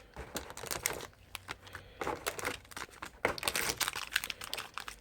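Plastic packaging and foil booster pack wrappers crinkling and rustling as they are handled, in irregular crackles with a brief quieter lull about a second in.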